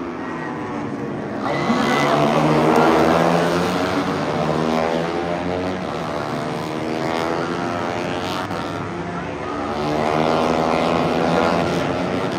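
Several Moto3 race bikes with 250 cc single-cylinder four-stroke engines passing at high revs, overlapping, their pitch sweeping up and down as each goes by. The loudest passes come about two seconds in and again near ten seconds.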